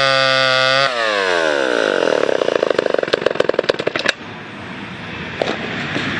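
Homelite XL two-stroke chainsaw running steadily at high revs. About a second in the throttle is let off and the revs fall away, the engine runs unevenly at low speed, and its sound cuts off abruptly about four seconds in.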